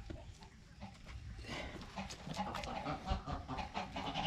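A lamb being handled for tail banding: irregular scuffling and short breathy animal noises, starting about a second and a half in.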